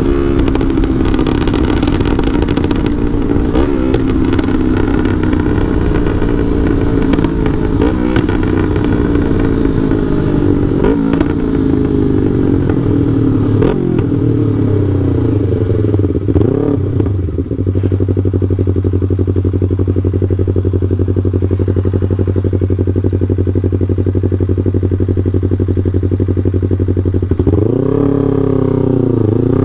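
Yamaha R3's parallel-twin engine running through a Full Pro aftermarket exhaust, with a remapped ECU. The engine note sinks slowly with small rises and falls through the first half, holds a steady note for about ten seconds, then revs up and down sharply near the end.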